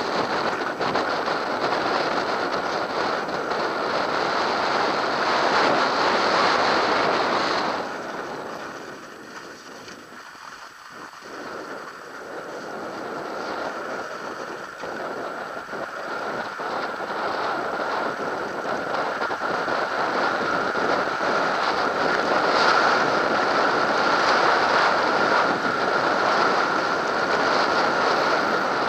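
Wind rushing over the microphone of a camera on a mountain bike riding down a snowy track. The rush drops away for a few seconds about eight seconds in, then builds back up.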